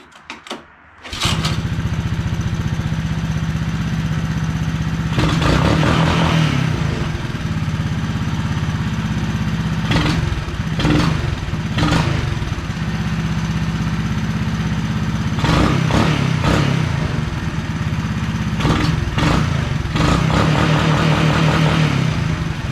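1980 Honda ATC185's single-cylinder four-stroke engine firing up for its first start after a rebuild, catching about a second in and then idling with several quick blips of the throttle.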